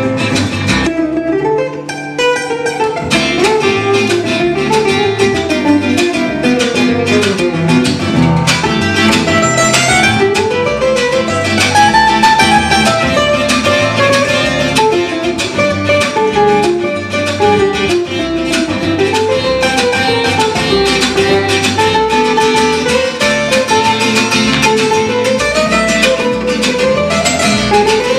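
Acoustic guitars playing an instrumental break in a live folk-jazz song: a lead guitar runs a melodic solo line over rhythm guitar and bass, with no singing.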